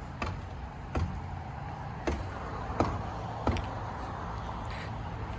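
Footsteps on pavement, a step roughly every 0.7 seconds, over a steady low rumble.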